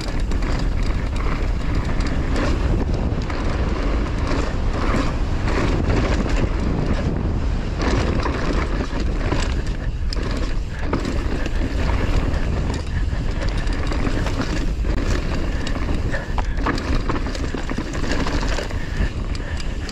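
Mountain bike riding down a dirt trail: heavy wind rumble on the helmet-camera microphone over the tyres rolling on dirt, with frequent rattles and knocks as the bike goes over roots and bumps.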